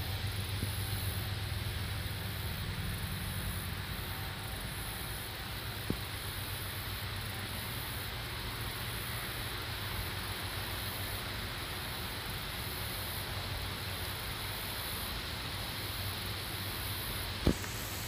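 Wind buffeting the microphone: a steady rushing noise with the most energy low down, a little gustier at first, with a short tap about six seconds in and a louder one near the end.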